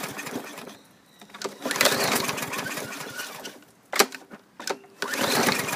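Briggs & Stratton 140cc engine on a Craftsman M100 push mower being pull-started. The recoil starter is yanked repeatedly and the engine turns over without catching, with a couple of sharp knocks between pulls. The owner suspects contaminated fuel.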